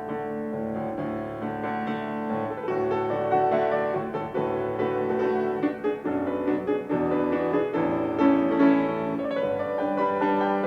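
Background music led by piano, with sustained, changing notes and no speech.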